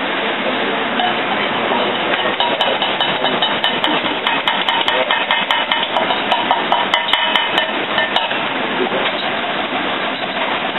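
Wire whisk beating in a stainless steel bowl, the wires clicking against the metal about four times a second, starting about two seconds in and stopping about eight seconds in, over a steady background of kitchen noise.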